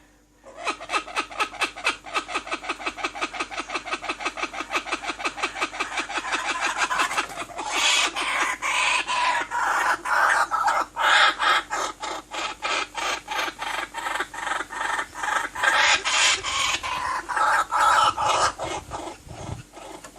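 White-eared puffbird (joão-bobo) calling: a long, rapid series of repeated notes, about five a second, that grows louder and fuller about seven seconds in.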